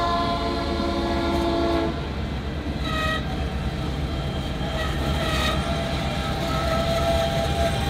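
Diesel locomotive horn on a Grand Trunk Western GP38-2 freight sounding for a grade crossing. A long blast cuts off about two seconds in, then shorter blasts come a second later and again near the middle, and another blast starts near the end. Under the horn runs the steady rumble and clack of tank cars and a covered hopper rolling past on jointed track.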